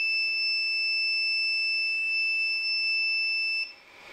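Artillery Genius Pro 3D printer's buzzer sounding one long, steady, high beep: the filament runout alarm, given because the runout sensor detects no filament and the print has been paused. It cuts off about three and a half seconds in.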